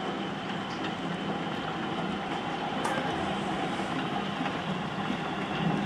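Heavy thunderstorm rain pouring down in a steady, dense hiss, with a few sharp ticks.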